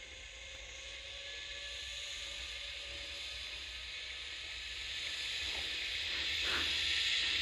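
Zip-wire trolley running down the cable: a hiss with a faint steady whine, growing steadily louder as the rider comes closer.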